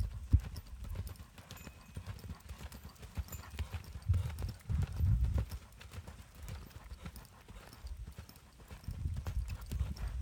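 A horse loping on soft arena sand: muffled, rhythmic hoofbeats that swell twice as it comes round close by.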